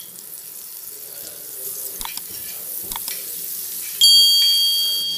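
Butter melting and sizzling on a hot tawa as a steel spoon spreads it, with the spoon clicking against the pan twice. About four seconds in, a loud ringing chime starts, two steady high tones slowly fading: the sound effect of an animated subscribe-and-bell button.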